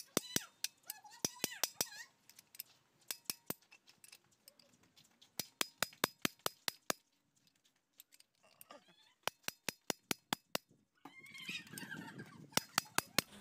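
Runs of sharp metallic clicks, about five a second, from a wrench being worked on the cover bolts of a Komatsu PC200-8 excavator's swing motor as they are tightened during reassembly. Faint voices murmur between the runs.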